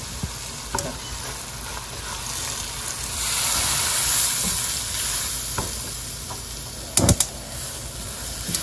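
Spice powders and fried onions sizzling in oil in a nonstick frying pan while a silicone spoon stirs and scrapes them through. The sizzle swells a few seconds in, and there are a few sharp knocks about seven seconds in.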